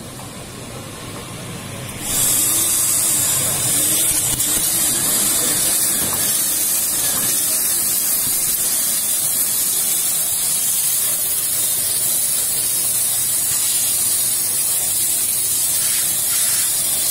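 Steam-cleaning machine's handheld nozzle jetting steam onto a shoe: a loud, steady hiss that comes on suddenly about two seconds in.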